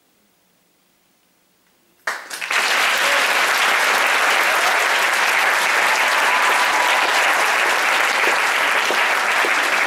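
Near silence for about two seconds, then an audience bursts into loud, steady applause.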